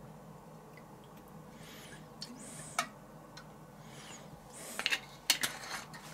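Olive oil poured from a glass bottle over bacon-wrapped meat rolls in a stainless-steel tray: faint soft trickling, with a few light clicks and knocks, most of them near the end.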